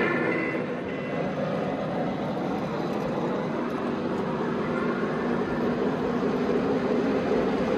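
O-gauge three-rail model trains running on a layout: a steady rumble of wheels and motors on the track.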